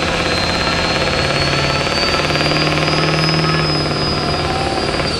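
Chevrolet Duramax diesel pickup engine run hard under load as it digs into a pulling sled at the start of a truck pull, with a high whine rising slowly above it. The engine note steps up about a second or two in, and the sound drops off at the very end.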